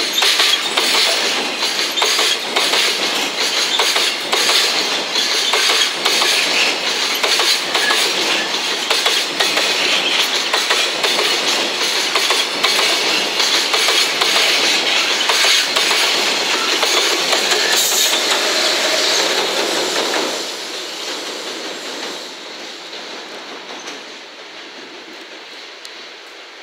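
Loaded container wagons of a freight train rolling past close by, wheels clattering over rail joints in a rapid run of clicks. About twenty seconds in the noise drops off sharply and fades as the end of the train, with the EF210 electric locomotive pushing at the rear, goes by and moves away.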